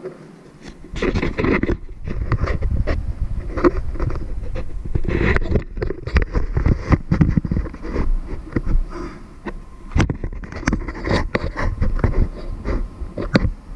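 Handling noise from an action camera gripped and moved by hand: fingers rubbing and knocking on the housing right at its microphone, with irregular clicks, scrapes and a low rumble. It starts about a second in and lets up near the end.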